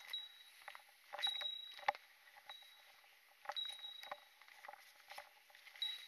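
Footsteps on a narrow dirt forest trail, an irregular soft tread every half second or so, with a faint high ringing note coming and going.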